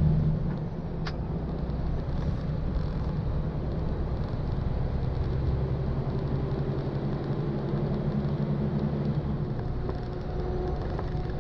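Heard inside the cab of a MAN heavy truck cruising at highway speed: a steady low diesel engine drone mixed with road and tyre rumble. There is a faint short tick about a second in.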